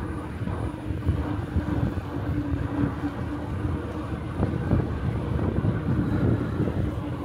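Wind rumbling on the microphone of a moving e-bike, with a steady hum from its electric motor underneath.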